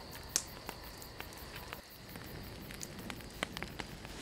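Campfire of sticks and logs burning, crackling with irregular sharp pops.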